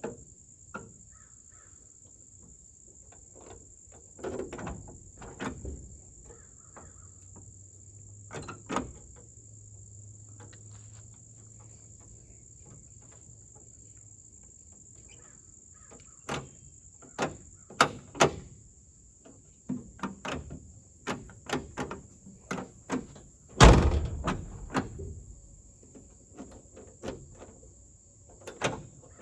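Clicks and clunks from a 1971 Chevy C10 pickup's door handle, latch and lock being worked by hand, with one loud door slam about two-thirds of the way through.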